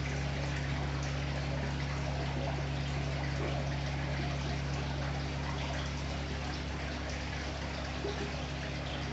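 Steady trickling water over a low, even electric hum from aquarium filtration running in the shrimp tanks.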